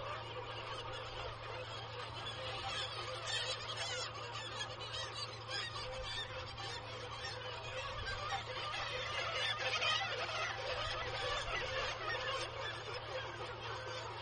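Nesting colony of black-legged kittiwakes calling, many birds at once in a dense, continuous chorus of overlapping nasal cries, over a steady low hum.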